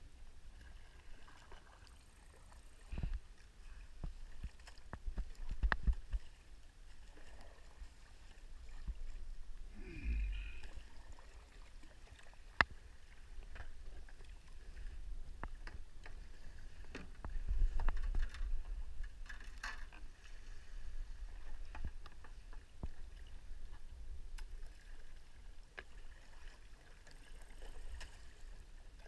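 A sea kayak paddled in calm shallow water: paddle strokes and water lapping at the hull, with scattered knocks and clicks of paddles and hulls. Near the end the plastic hull runs up onto a wet concrete ramp.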